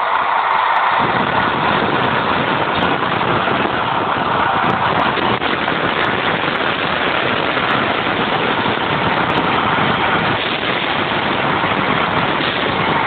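Recorded motor vehicle engine sound effect running loud and steady, with a deep rumble coming in about a second in.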